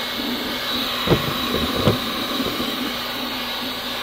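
1500-watt heat gun running steadily with a blowing hum and a high whine, heating a PVC drain pipe to soften it for bending. Two brief knocks about one and two seconds in.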